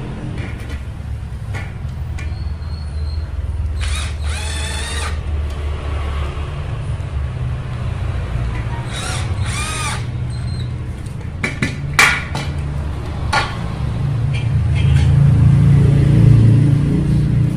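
Cordless drill whirring in two short runs, about four and nine seconds in, its pitch rising and falling, as it works at the end of a square steel tube fitted with a plastic end cap. A sharp knock about twelve seconds in and a few lighter clicks, over a steady low rumble.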